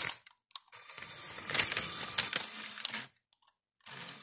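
LEGO train rolling along plastic LEGO track toward the microphone, a rattling clatter of wheels on the rails with a few sharper clicks, growing louder as it nears. It cuts off abruptly after about three seconds, and the clatter starts again near the end.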